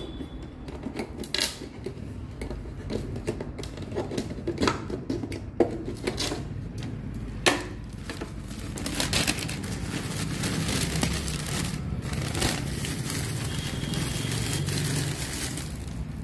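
Wooden apple crate opened with a metal rod: a series of sharp knocks and cracks from the wooden lid boards, the loudest about seven and a half seconds in. From about eight and a half seconds on, the newspaper lining rustles and crinkles as it is pulled back from the apples.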